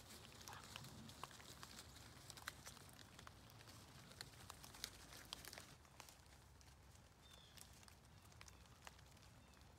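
Faint crackling and rustling of goats tearing leaves off a leafy branch held out by hand. The crackles thin out about six seconds in.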